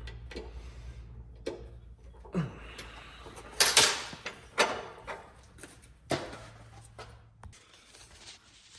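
A series of clunks and knocks from handling the metal chop saw, the loudest about three and a half seconds in. A low steady hum underneath stops near the end.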